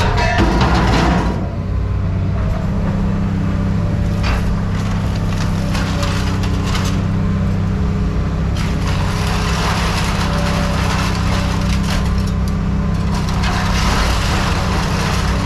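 A running engine or machine drone, steady throughout, with scattered clanks and crunches of scrap metal being handled, the loudest of them about a second in.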